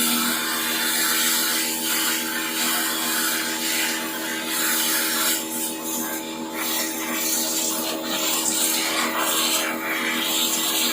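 Rubbing, scraping noise that comes and goes every second or so, over a steady hum.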